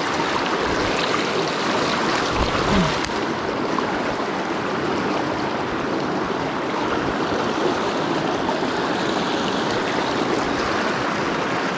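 Shallow mountain river rushing and splashing over rocks and boulders: a steady, close rush of water.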